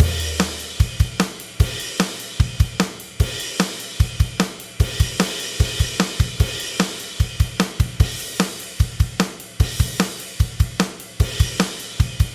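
A drum kit playing a steady rock beat, with bass drum, snare, hi-hat and cymbals.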